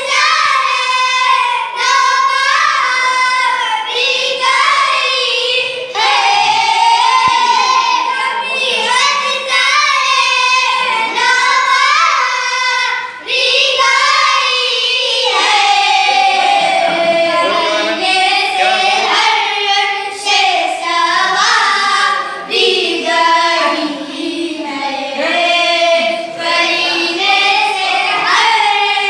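Children singing a naat, a devotional song in praise of the Prophet, in voices alone without instruments, the melody rising and falling in long held phrases.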